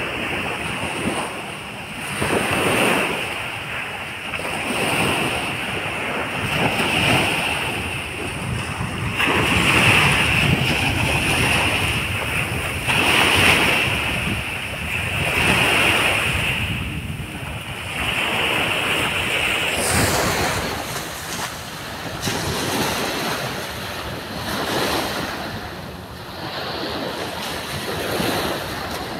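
Small waves breaking and washing up a sandy beach, the surf swelling and fading every few seconds, with wind buffeting the microphone.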